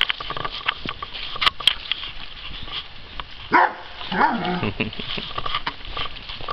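A dog vocalizes briefly about halfway through: a sharp yelp-like sound, then a short call that rises and falls in pitch. Footsteps and rustling on grass and gravel click through the rest.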